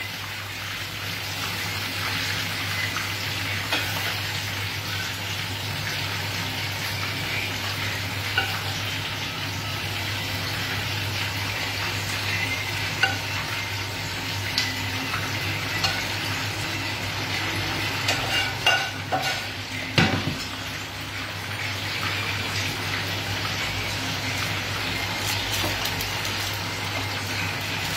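Oil sizzling steadily in a frying pan, with occasional clicks and scrapes of a spoon against a pan as mushrooms are served out; the loudest knock comes about two-thirds of the way through.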